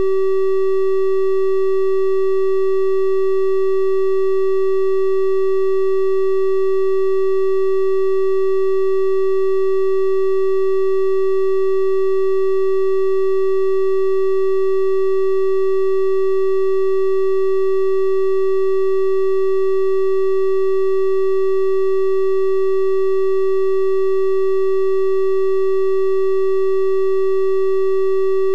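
A steady, unchanging 384 Hz triangle-wave tone, a pure electronic hum with faint higher overtones.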